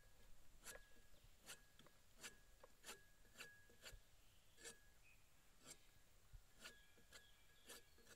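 A broad tapping knife shaving thin slices off the cut end of a coconut flower on a wooden table. The blade strikes faint, short scraping strokes about once every two-thirds of a second.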